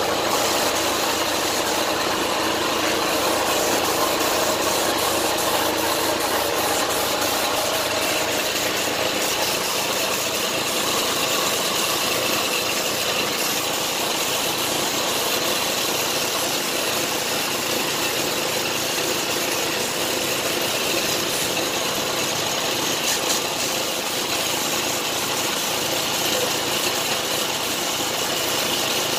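Air compressor running steadily, with the continuous hiss of a gravity-feed spray gun spraying paint.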